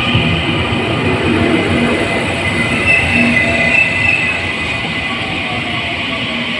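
Taiwan Railway train running past at close range: a steady rumble of wheels on rail, with a high wheel squeal that stands out about three seconds in.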